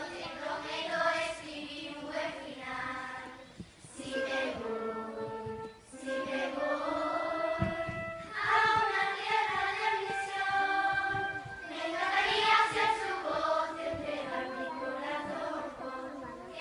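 A children's choir singing a song together in phrases, with short breaks about four and six seconds in.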